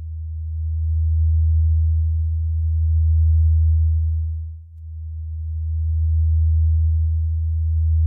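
A deep, steady electronic drone from a Pure Data computer patch, one tone that swells and fades in slow waves, dipping almost away about four and a half seconds in before rising again.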